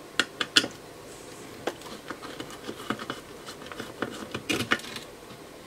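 Light, irregular clicks and taps of a screwdriver and hands against an aluminium instrument front panel and its circuit board, with a few sharper clicks shortly after the start and again about four and a half seconds in.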